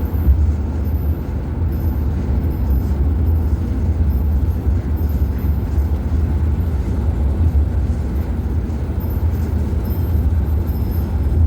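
Steady low rumble of road and engine noise inside a moving van's cabin.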